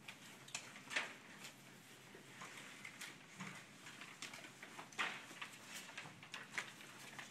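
Paper rustling as students handle and turn the pages of printed reading packets, in short irregular rustles and light ticks, the clearest about a second in and about five seconds in.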